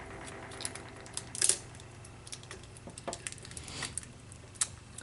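Scattered small clicks and scrapes of hands working at packing tape and a cable tie inside a plastic 3D printer's frame, with a louder cluster of clicks about one and a half seconds in.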